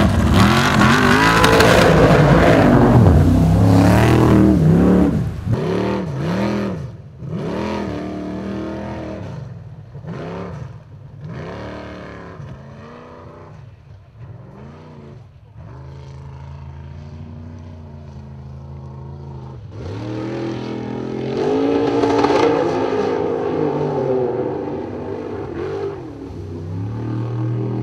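Formula offroad race buggy's engine being driven hard. It is loudest in the first few seconds under full throttle, then the revs rise and fall again and again, about once a second, as the throttle is worked over rough ground. It swells loud again a few seconds before the end.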